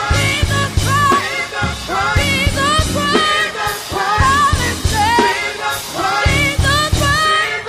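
Band music with singing, over a steady bass and drum beat.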